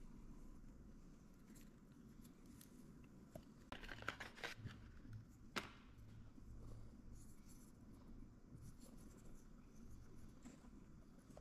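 Faint handling sounds of a lip seal and seal rings being picked up and fitted against a metal compressor seal cover: light rubbing, with a few small clicks about four to six seconds in, over quiet room tone.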